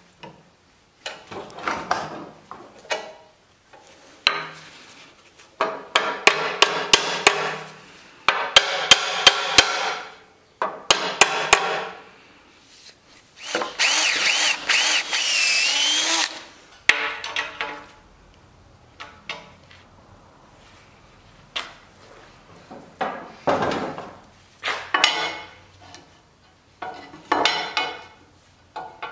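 Shop work fitting iron hardware to a wooden wagon tongue: runs of sharp hammer strikes in the first half, then a drill boring through an iron plate into the wood for about two seconds, with scattered knocks and clanks of iron fittings and tools being handled.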